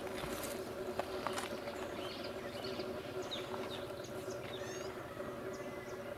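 Outdoor natural ambience: small birds give short, high chirps, several of them quick falling sweeps, over a steady low hum, with a few faint clicks near the start.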